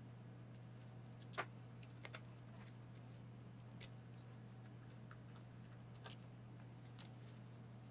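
Quiet handling sounds of a knife and raw chicken on a plastic cutting board: a few faint clicks and taps, the sharpest about a second and a half in, over a steady low hum.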